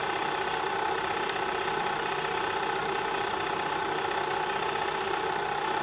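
Steady mechanical hum of a digital ring-and-ball softening-point apparatus running, its magnetic stirrer motor spinning while the heater warms the water bath.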